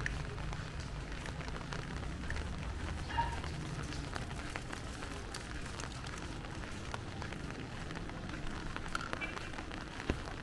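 Steady rain falling, with a dense scatter of sharp drop ticks over an even hiss. A low rumble underneath fades out after about four seconds.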